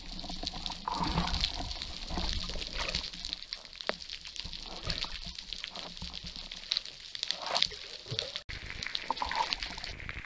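Underwater water noise picked up by a speargun-mounted camera, with many scattered faint clicks and crackles.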